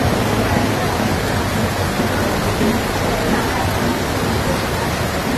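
Heavy rain pouring down, a steady, dense hiss with no breaks.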